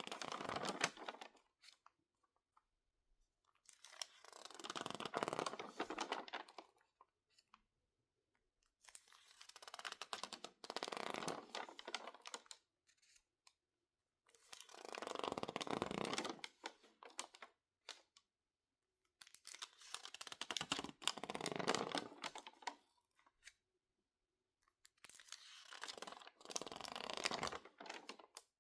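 Crinkled, water-damaged magazine pages being handled, squeezed and turned by hand. The pages crinkle in slow rounds of about two to three seconds each, roughly every five seconds, with silence between rounds.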